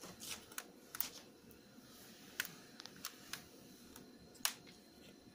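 Faint, scattered sharp clicks and taps, about a dozen spread unevenly, the loudest one near the end.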